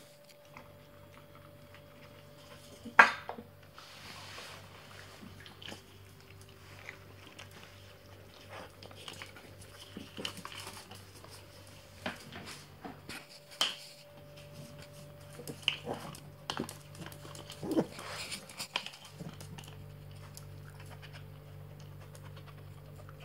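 Silky terrier moving about on a tiled floor and nosing at a small toy: scattered light clicks and knocks, the loudest about three seconds in, over a steady low hum.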